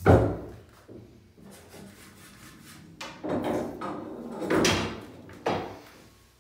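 A few dull knocks and rumbling thuds: a loud one at the very start, a softer one a second later, two longer rumbling ones around three and four and a half seconds in, and a sharper knock shortly after.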